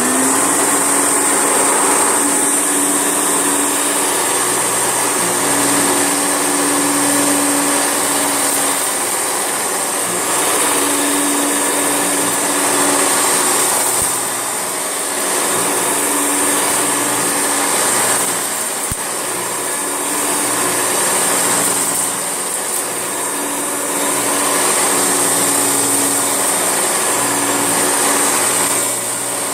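Hoover Turbolite upright vacuum cleaner running at full power while vacuuming up a hairy mess on carpet: a loud, steady motor noise with a high whine and a low hum that comes and goes as it is pushed back and forth.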